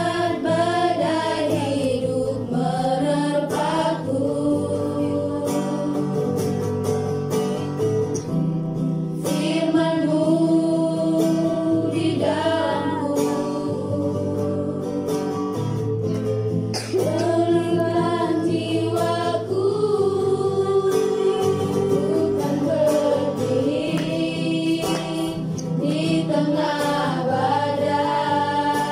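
A small group of women singing a worship song in unison, accompanied by an acoustic guitar.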